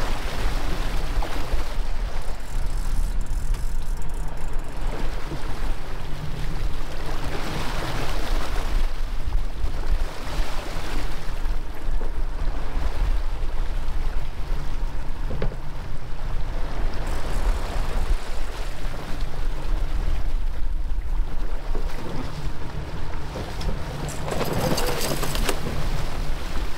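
Sportfishing boat's engine running with a steady low hum under the rush and slap of water along the hull and wind on the microphone. A louder burst of splashing comes near the end as a yellowfin tuna is gaffed and thrashes beside the hull.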